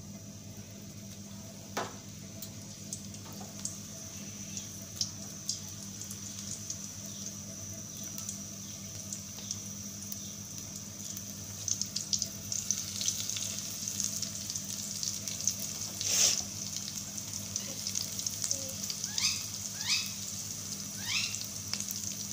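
Spring rolls deep-frying in hot oil with a steady sizzle. The crackling gets busier from about halfway through as more rolls go into the pan, with one sharp crackle burst a few seconds later.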